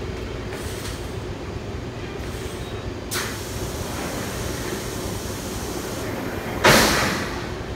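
Large industrial thermoforming machine running with a steady low hum, broken by a short hiss of air about three seconds in and a louder hiss near the end that fades over about a second.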